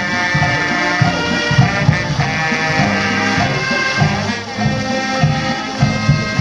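Dweilorkest brass band playing: trumpets and trombones sounding held notes over a low brass bass line that steps from note to note.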